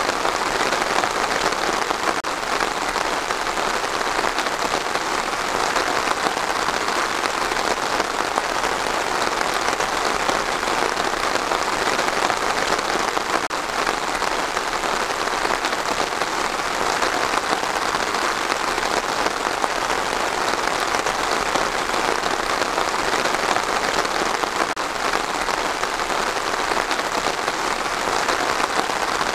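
Steady rainfall, an even hiss that holds without breaks or changes.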